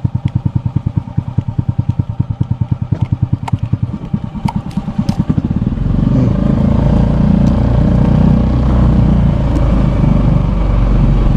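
A small engine idling with an even, rapid beat, then picking up speed about five and a half seconds in and running steadily louder.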